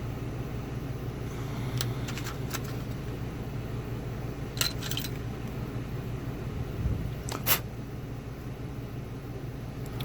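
Small metallic clicks and taps from handling the parts of a disassembled lock and the tools on the bench, in three short clusters about two, five and seven and a half seconds in, over a steady low hum.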